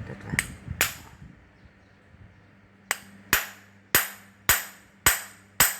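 Hammer blows on metal, each a sharp strike with a bright ring, knocking at parts of a handheld cutting machine being taken apart for a bearing change. Two blows, a pause of about two seconds, then a steady run of six at roughly two a second.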